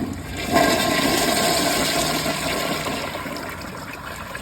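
2023 Mansfield ProFit toilet flushing on a mid-tank with the tank overfilled: a rush of water starts suddenly about half a second in, loudest at first, then slowly eases. It is a powerful flush.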